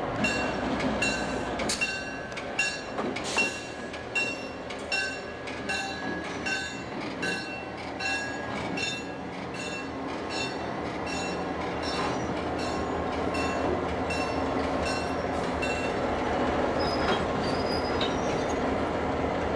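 Diesel locomotive bell ringing at an even pace, about two strikes a second, over the rumble of diesel locomotive engines rolling slowly past. The bell stops about 16 seconds in, leaving the engine rumble with a few brief high squeals near the end.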